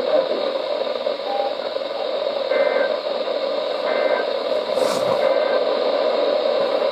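Weather radio receiver giving out steady static hiss between broadcasts, with faint short high beeps three times.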